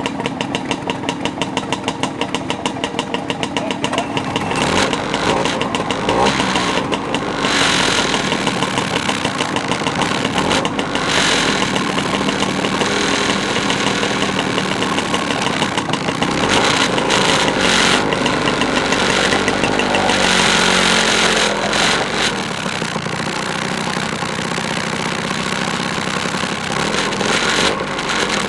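Several two-stroke motor scooter engines idling together in a group, with louder stretches several times where riders rev them up.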